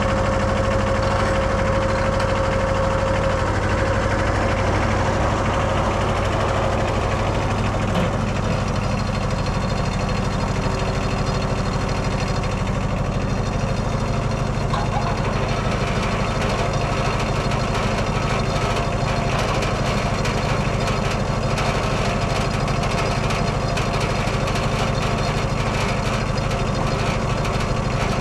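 Wood-Mizer LT15 sawmill's Kohler 17 hp diesel engine running steadily. A thin higher tone over it fades out about three seconds in.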